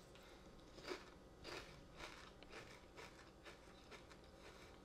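Faint, crisp crunches of kettle-cooked potato chips being chewed, about two a second, the loudest about a second in.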